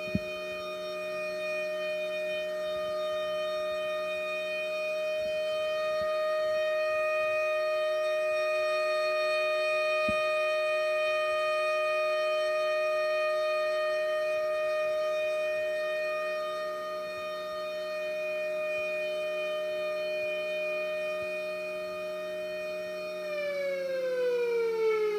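Model 2B electromechanical siren sounding a steady single tone at full speed. About 23 seconds in it begins to wind down, its pitch falling.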